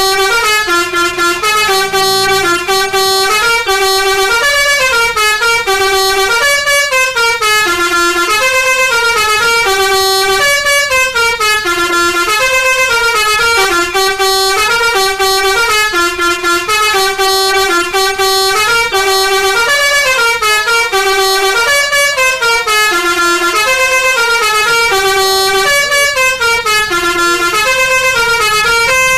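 Basuri telolet bus horn, a set of tuned air-horn trumpets, playing a continuous melody of quick stepped notes, several a second, with the tune repeating over and over without a break.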